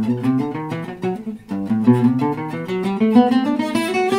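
Selmer-Maccaferri-style oval-hole gypsy jazz guitar picked with a plectrum: a quick run of single notes of the G major bebop scale, several a second, mostly climbing in pitch.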